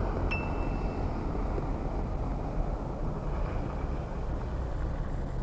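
Steady low rumble of street traffic, easing off slightly, with a brief high squeak about a third of a second in.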